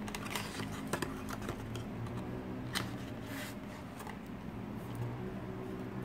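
Hands handling an opened Kinder Surprise egg: light crinkling and scattered small clicks, a few of them sharper, over a steady low hum.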